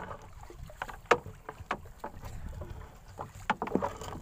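A wet fishing net and its float being gathered into a small boat: scattered short knocks, taps and splashes against the hull. Underneath is a low rush of wind and water.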